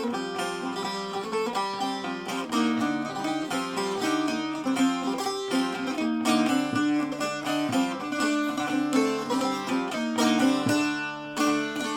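Instrumental break in a Turkish folk-style song: plucked string instruments play a busy melody with no singing.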